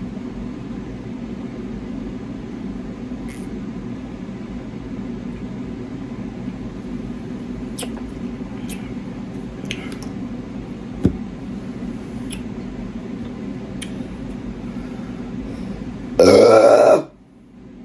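A woman's loud burp, under a second long, about sixteen seconds in, brought up by chugging a can of Sprite, which ends her attempt to finish it without burping. Before it there is only a steady low hum with a few faint clicks.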